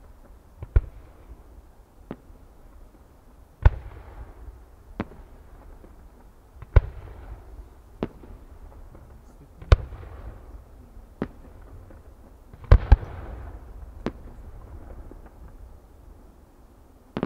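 Aerial fireworks shells being fired from their mortars: about a dozen sharp bangs at irregular intervals, two of them in quick succession near the end, each trailing off in a rumbling echo.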